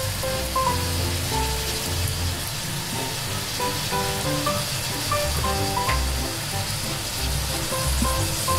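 Background music with a repeating bass line and short melody notes, over a steady hiss of fish sizzling in an iron pot as soy sauce is poured in.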